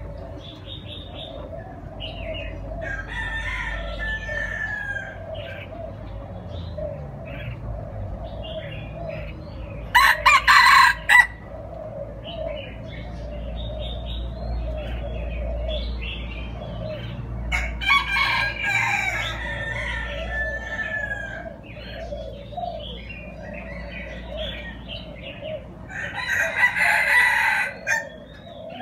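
Red junglefowl crowing three times, about eight seconds apart, each crow lasting a second or two. Small birds chirp faintly between the crows.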